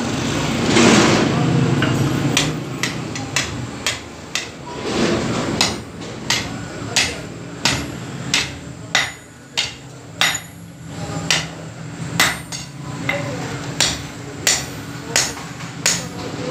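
Blacksmith's hand hammer striking a red-hot iron rod on an anvil, forging its end into a hook: a steady run of sharp metal blows, about one and a half a second, starting about two seconds in.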